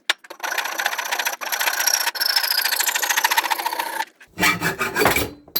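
A piece of exhaust pipe being cut through, heard as a steady, fast rasping that stops about four seconds in. A shorter burst of lower handling noise follows as the cut-off piece comes free.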